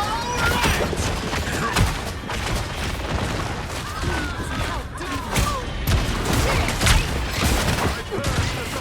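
Video game combat sounds from a hero shooter: repeated gunfire and blasts with whooshing ability effects, over game music.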